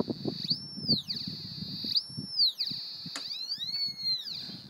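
Ebinger military metal detector's audio tone: a steady high whine that swoops up in pitch and back down three times as the search coil picks up metal. Low rustling and knocks sound underneath.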